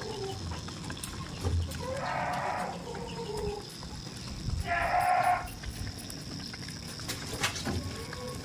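Goat bleating twice, short calls about two seconds in and again about five seconds in, with a sharp knock near the end.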